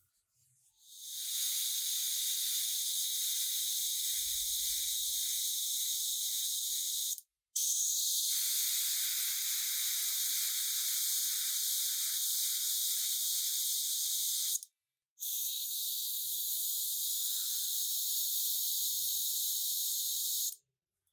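Steady pressurised spray hissing in three long bursts of about six to seven seconds each, each cut off abruptly, with faint low handling bumps beneath.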